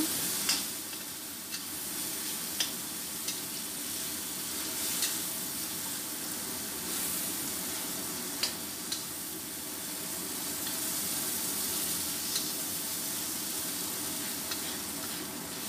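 Ground spice paste with chillies, bay leaves, galangal and lime leaves sizzling in oil in a stainless steel wok. The steady sizzle is broken by scattered sharp clicks as the metal spatula stirs and taps the pan.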